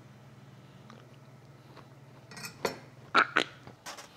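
A low steady hum, then from about halfway in a string of light rustles and several sharp clicks and knocks, including the flip lid of a kitchen trash can being opened.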